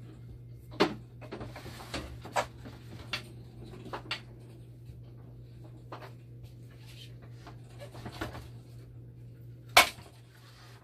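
Scattered clicks and knocks of plastic parts and tubing being handled inside an opened dialysis machine, with one sharp, louder knock near the end, over a steady low hum.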